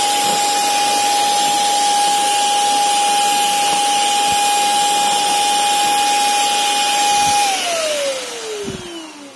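Electric paint spray gun's turbine blower (450 W, 22,000 rpm no-load) running with no paint, giving a loud, steady rush of air and a high whine. About seven and a half seconds in it is switched off, and the whine falls in pitch as the motor spins down. A couple of low knocks come near the end.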